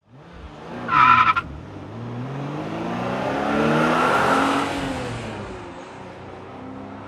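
A short, sharp tyre squeal about a second in, the loudest moment, followed by a car engine accelerating past: its pitch climbs as it swells to a peak a little past halfway, then falls away as it fades.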